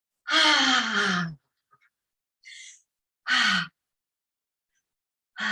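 A woman's voiced sighing exhales during a breathing exercise, each falling in pitch. A long sigh comes near the start, a short one past the middle and another at the very end, with a faint breath drawn in between.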